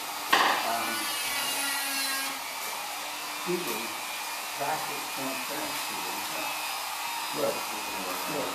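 Steady whir of an electric motor blowing air, with a short sharp knock about a third of a second in and faint voices at times.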